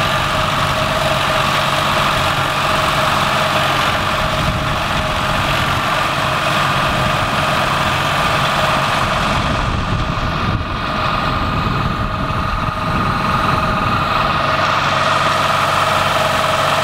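Engine of a compact vibratory plow used for pulling irrigation pipe, running steadily, with a steady whine above the engine rumble.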